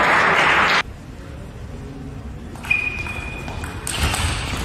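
Crowd noise in a sports hall cuts off suddenly less than a second in. A quieter stretch of a table tennis rally follows: a sharp click about two and a half seconds in with a steady high tone after it, then louder hall noise near the end.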